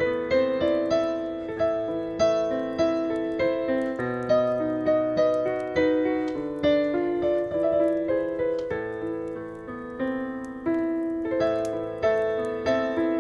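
Solo piano playing a slow, gentle melody, each note struck and left to ring and fade, over a faint background crackle of a wood fire.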